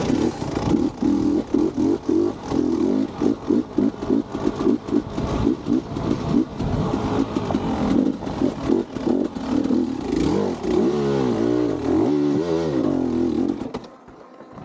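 KTM two-stroke dirt bike engine climbing rocky singletrack, the throttle chopping on and off in quick pulses. Toward the end it revs up and down in smooth sweeps, then falls away suddenly.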